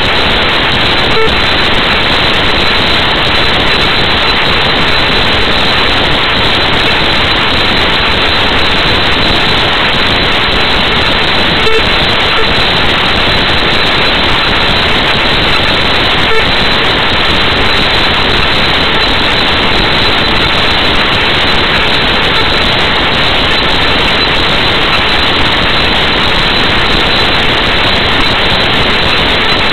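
Loud, steady hiss of static noise with no speech in it, broken only by a few faint clicks.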